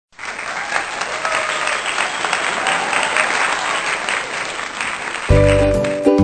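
A crowd applauding, a steady clapping that lasts about five seconds. It then gives way to upbeat children's background music with piano.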